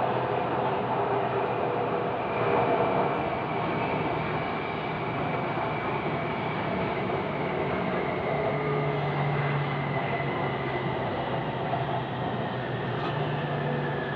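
Elevated Bangkok BTS Skytrain heard from inside the car while running: a steady rumble and hiss with a motor whine that falls slowly in pitch through the second half as the train slows.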